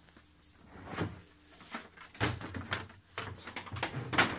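Plastic top cover of a twin-tub washing machine being worked loose and lifted off, a run of irregular scrapes and knocks that grows louder about halfway through.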